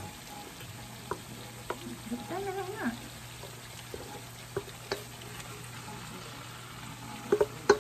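Chopped pork offal being scraped into a hot pan with a wooden spatula, sizzling in oil with sautéed onions. Scattered clicks of the spatula on the stainless steel bowl and pan, with a quick run of louder knocks near the end.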